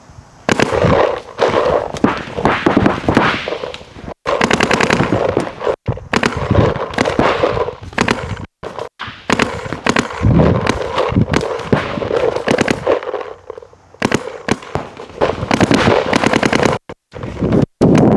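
Paintball markers firing in long, rapid strings of pops, volley after volley with short breaks. The sound cuts out completely for an instant several times.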